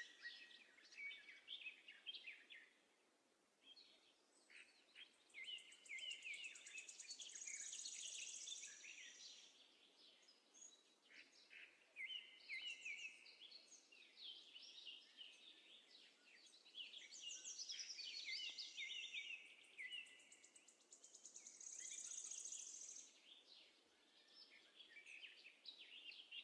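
Faint birdsong: many short chirps and high trills coming in phrases of a few seconds, with short gaps between.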